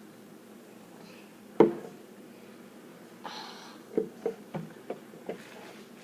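One sharp knock, then a short rustle and a quick run of lighter knocks and taps: small objects being handled and set down on a tabletop.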